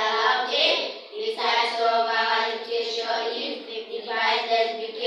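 A class of children voicing together in unison, a sing-song chant of long held notes in phrases of a second or two, with short breaths between phrases.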